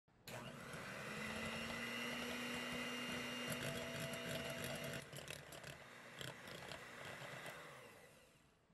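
Electric hand mixer running, its beaters whisking egg yolks in a glass bowl, with a few scattered clicks. The whirr starts just after the beginning, changes about five seconds in, and fades out near the end.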